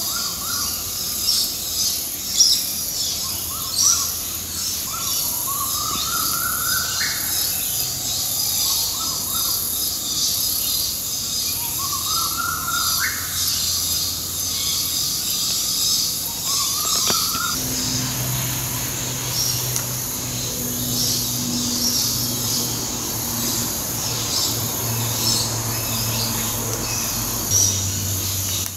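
Birds chirping and calling in dense trees. Many quick high chirps run throughout, with a few short rising calls in the first half. A low steady hum comes in about two-thirds of the way through.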